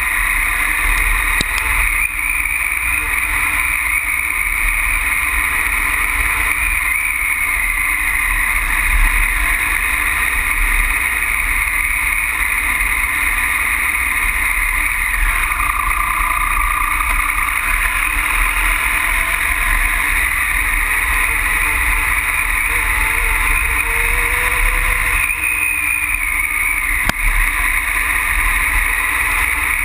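Triumph Tiger Explorer motorcycle's three-cylinder engine running steadily while riding over a rocky gravel track, mixed with a constant low wind rumble on the microphone.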